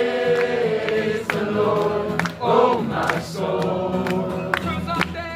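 Worship song with sung voices holding a long note, over a few percussive hits.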